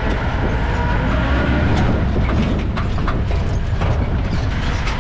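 Safari jeep driving along a dirt track, heard from inside its open-sided cabin: a steady engine and road rumble with scattered short knocks and rattles from the body.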